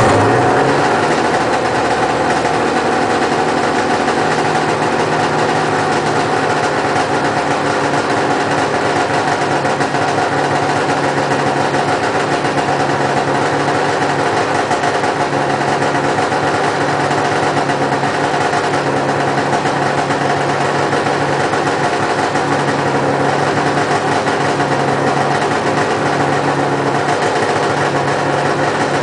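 Arctic Cat Wildcat 700 EFI two-stroke twin snowmobile engine catching right at the start, then idling steadily.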